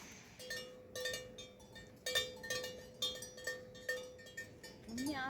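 A small metal bell clanking in irregular strikes, about two a second, each with a ringing note. Near the end a wavering, bleat-like call begins.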